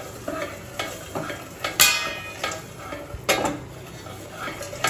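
Popcorn in a covered stainless steel pan with only scattered pops left over a low sizzle of oil: the popping has slowed, the sign that the batch is almost done. Twice, about two and three seconds in, the steel pan and plate lid give a louder metallic clank that rings briefly.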